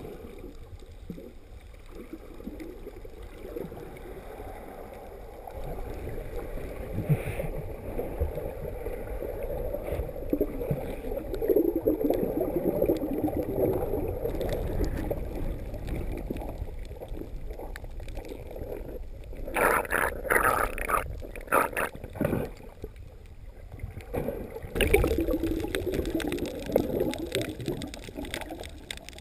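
Muffled underwater rushing and churning of ocean surge heard through a GoPro's waterproof housing while snorkeling over reef, with brief louder splashing bursts about two-thirds of the way through and again shortly after.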